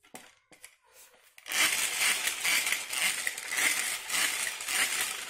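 Hand-cranked powerless blender being turned: its gears and metal beaters whirring and rattling. A few light clicks come first, then the whirring starts about a second and a half in and runs for about four seconds.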